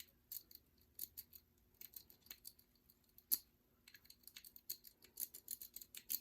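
A lock pick raking and rocking inside an old Reese lock cylinder: faint, irregular metallic clicks as it works the pins or wafers. The clicks quicken into a rapid run about four seconds in.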